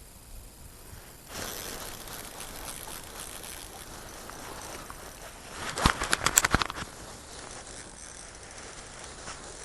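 Fishing reel being worked: a steady whirring hiss, then a quick rattle of about eight ratchet-like clicks a little under six seconds in.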